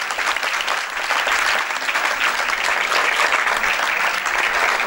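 Spectators applauding steadily.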